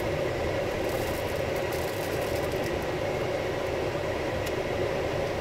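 Steady hum of a car's engine and road noise, heard from inside the cabin.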